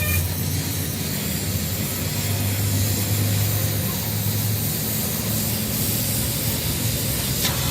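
Steady machine noise: a low hum under a broad hiss, cutting off abruptly near the end.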